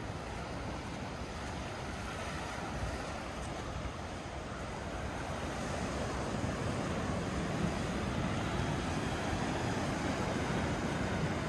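Ocean surf breaking and washing over a sandy, rocky shore, a steady rushing noise with wind on the microphone. It grows a little louder about halfway through.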